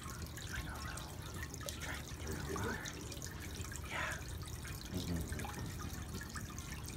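Water from a concrete garden fountain trickling and dripping from its stone spout into the basin, a steady splashing.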